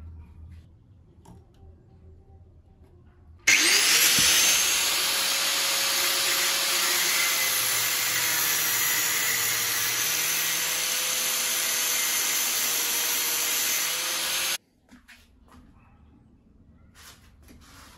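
Angle grinder spinning up with a rising whine, then cutting into a stainless steel bolt clamped in a bench vise: a loud, steady grinding whine for about eleven seconds that cuts off suddenly.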